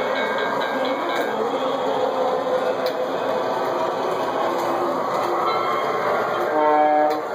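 Model train running on the layout's track, a steady rolling rumble, with a short horn blast near the end.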